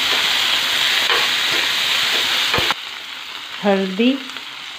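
Chopped tomatoes, onions and garlic sizzling in hot oil in a kadhai while a spatula stirs them, with a few scrapes. The loud sizzle cuts off suddenly a little past halfway, leaving a softer frying hiss.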